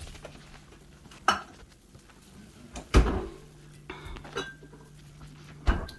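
Dishes and cutlery being handled: four separate knocks and clinks, the loudest about three seconds in.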